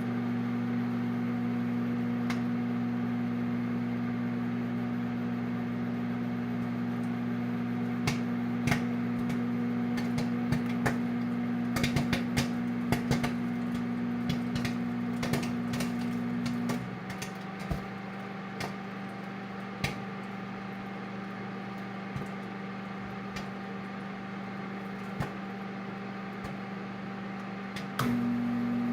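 Microwave oven running with a steady hum while microwave popcorn pops inside: scattered sharp pops, thickest from about a third of the way in to just past halfway, then sparser. The hum drops quieter a little past halfway and comes back up near the end.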